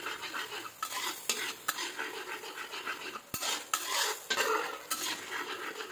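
A spatula stirring a bubbling sauce in a wok, its edge scraping and knocking irregularly against the pan over a light sizzle, with one sharp knock a little past halfway.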